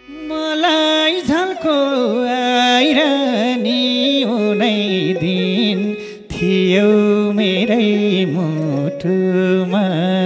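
Nepali folk (dohori) music: a melody of long held notes with slides and quick ornaments, and a few sharp hits.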